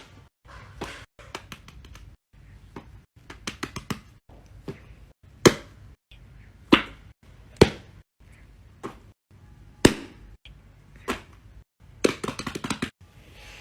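Fidget toys being popped and clicked by hand: a string of sharp pops, some single and loud, some in quick runs of several, in short separate segments.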